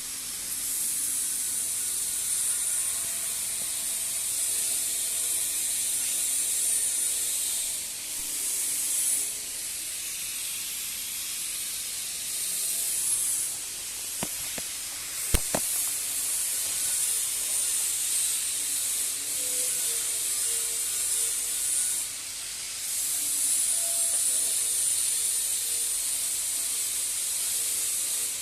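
TIG welding arc hissing steadily, the hiss dropping off briefly several times, with a couple of sharp clicks about halfway through.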